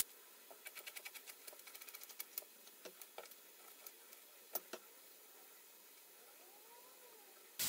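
Kitchen knife chopping half an onion on a cutting board: a quick run of light taps for about two seconds, then a few scattered taps.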